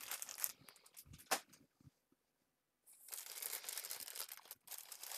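A few light taps and clicks, then, from about three seconds in, a steady crinkling of plastic zip-lock parts bags as hands rummage through them.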